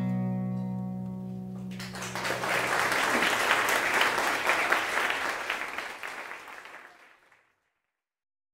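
A last guitar chord rings out, then an audience applauds from about two seconds in, the clapping fading away at about seven seconds.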